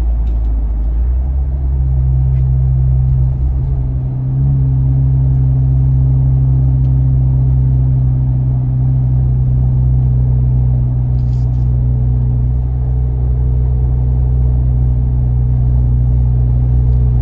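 Jeep Wrangler JL's 2.0-litre turbocharged four-cylinder, running through a Flowmaster American Thunder muffler-delete exhaust, heard from inside the cabin while accelerating to highway speed. The engine note steps up about two seconds in, dips briefly around four seconds, then holds a steady low hum at cruising speed, the sound being tested for highway drone.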